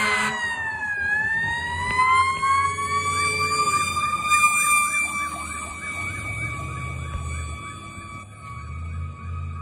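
Fire engine siren: a wail that dips about a second in, then rises and holds, joined by a fast yelp of about two or three sweeps a second from about three seconds in, with the truck's low engine rumble in the second half. A horn blast cuts off right at the start.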